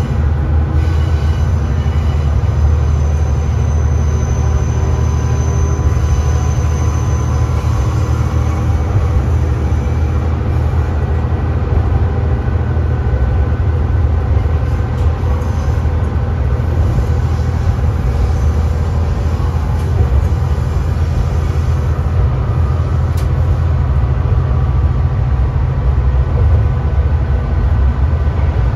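Diesel railcar KiHa 3710 heard from inside the car, with a steady low engine drone and rumble throughout.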